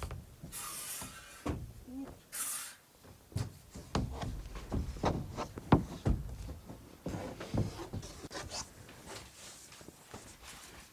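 Handling and work noises: two short hissing rustles in the first three seconds, then an irregular string of knocks and thumps with some rubbing.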